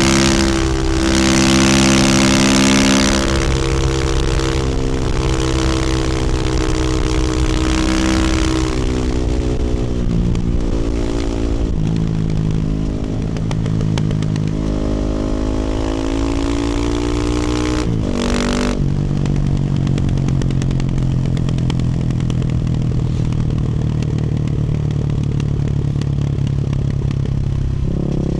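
Husqvarna FE450 supermoto's single-cylinder four-stroke engine, through an Akrapovic exhaust, under way on the road. It is loudest in the first few seconds, its pitch shifts and slides over the next stretch, and it drops sharply about 18 seconds in before running at steady revs.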